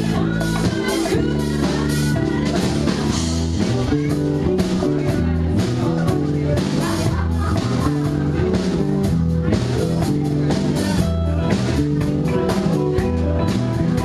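A live band playing a song with a steady beat: electric guitar, bass guitar and drum kit.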